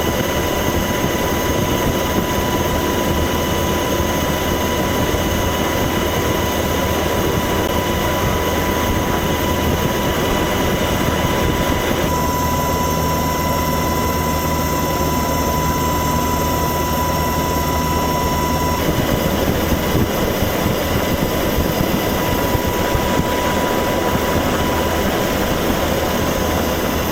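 Steady, loud engine noise with a high steady whine over it; the sound shifts about twelve seconds in and again about nineteen seconds in.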